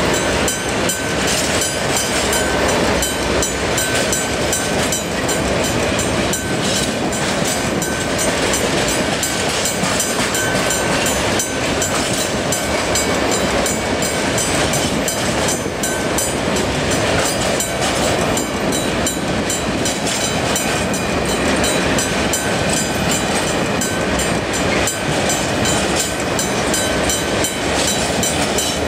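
Freight train of covered hopper wagons rolling steadily past at close range, wheels clattering over the rails. A thin high whistle from the running gear comes and goes on top.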